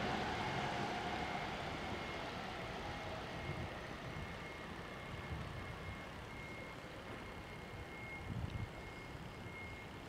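Rumble of a train moving away from the level crossing, fading over the first few seconds. A faint high beep repeats about once a second in the second half.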